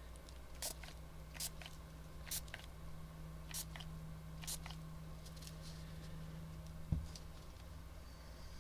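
Scattered light clicks and taps of a small tool and containers being handled while working epoxy resin in silicone molds, over a steady low hum that stops with a soft thump about seven seconds in.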